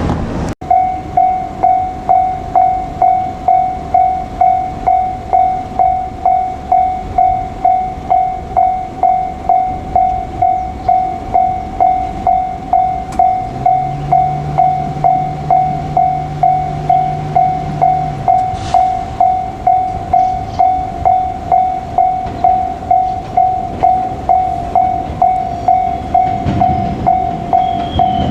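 Japanese railway level-crossing warning bell ringing steadily, about two strikes a second, signalling that a train is approaching. A low steady hum comes in for about four seconds midway.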